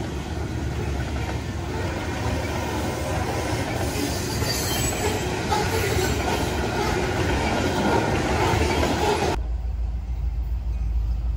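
Freight train of covered hopper cars rolling past, a steady rumble of steel wheels on rail. About nine seconds in the sound cuts off abruptly, leaving only a low rumble.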